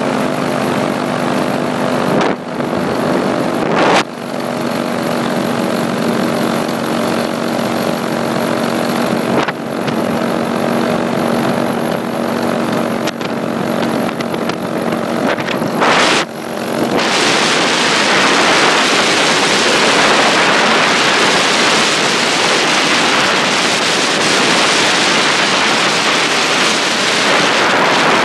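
Paramotor engine and propeller running steadily in flight, a droning tone with a few brief knocks. About seventeen seconds in, loud wind rushing over the microphone takes over and buries the engine.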